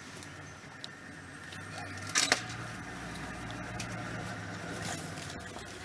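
African wild dogs tearing and crunching at an impala carcass, with sharp snaps and a loud crackle about two seconds in, over the steady low hum of an idling vehicle engine.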